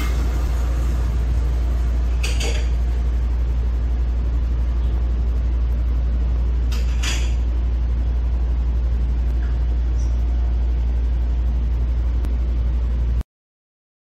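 A steady, loud low hum, like a machine or engine running, with a few short clinks about two, seven and ten seconds in; it cuts off suddenly near the end.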